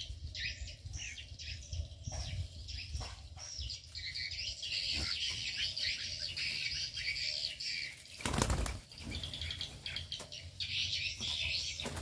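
Small aviary birds chirping and twittering, with a brief loud flutter of wings about eight seconds in.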